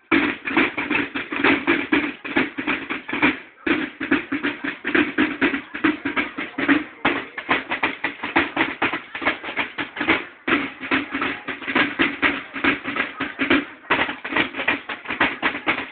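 Field drum section of a Mexican banda de guerra playing a fast, dense rolling drum cadence in unison on its snare-style drums, with brief breaks between phrases about every three and a half seconds.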